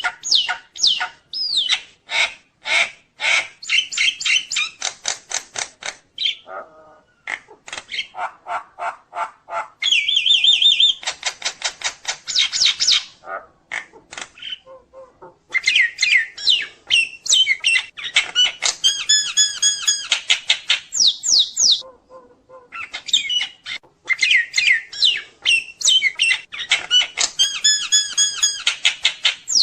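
Nias hill myna singing a long, varied string of rapid clicking notes, whistles and sliding calls, broken by a few short pauses.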